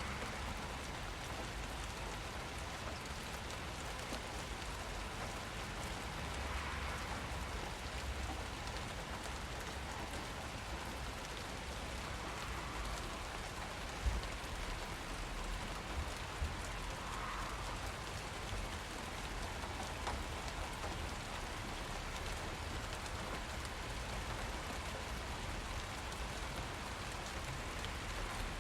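Steady rain falling, an even hiss of drops on surfaces, with a couple of brief taps about halfway through.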